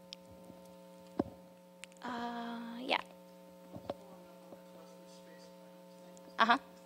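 Steady electrical mains hum in the sound system, with a couple of short voice sounds, one about two seconds in and a louder one near the end, and a small knock about a second in.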